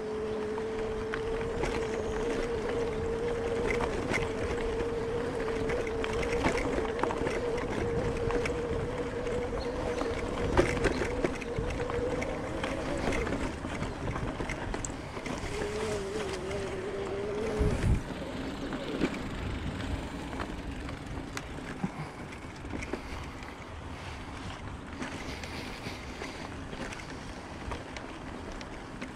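Electric bike motor whining steadily over the rumble of tyres on a dirt trail, with a few sharp knocks as the bike goes over bumps. About halfway through, the whine drops lower and fainter.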